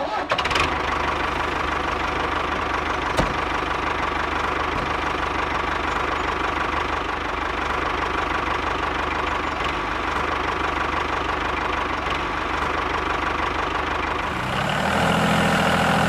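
Single-cylinder diesel engine of a walk-behind tractor running steadily with a knocking chug. A single click sounds about three seconds in, and near the end the engine gets louder and fuller.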